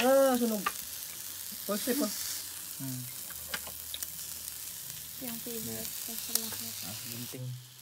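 Pork belly slices sizzling on a hot grill pan, a steady frying hiss with a few light clicks of chopsticks against the pan; the sizzle cuts out near the end. A short voice is heard at the very start and faint voices later on.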